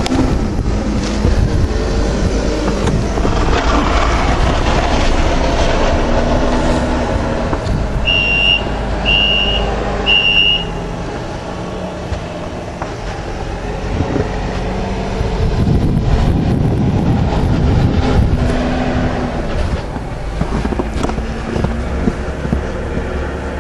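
A heavy vehicle's engine running with a steady low rumble, its pitch shifting as it works. Its backup alarm beeps three times, about a second apart, around eight seconds in.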